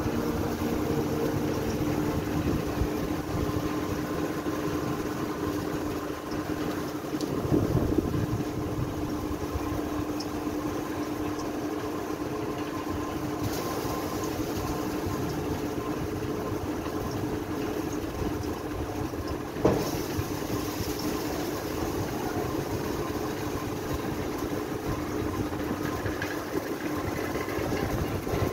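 Steady mechanical hum with a constant low tone from machinery on top of a grain silo. A short knock comes about twenty seconds in.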